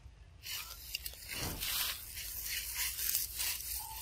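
Intermittent rustling and scraping noises.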